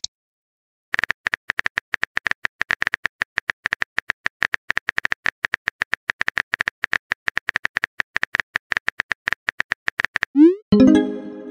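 Simulated phone-keyboard typing: a long, fast run of short, bright tap clicks while a message is typed out. Near the end comes a quick rising swoosh, then a short pitched pop: the message-sent sound.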